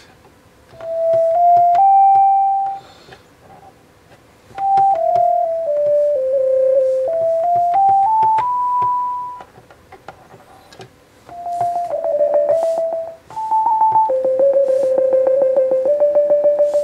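Zeppelin Design Labs Macchiato mini synth playing single notes one at a time in short stepwise runs up and down, with brief pauses between phrases. From about twelve seconds in, the notes have a fast, regular pulsing wobble from the synth's LFO.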